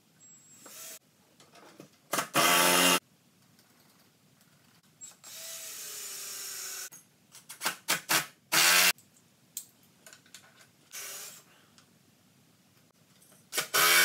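Cordless drill driving galvanized lag screws through caster wheel mounting plates into wood, in several short bursts of the motor. The loudest bursts come about two and a half seconds in, near nine seconds and at the end, with a longer, quieter run around six seconds in whose pitch drops.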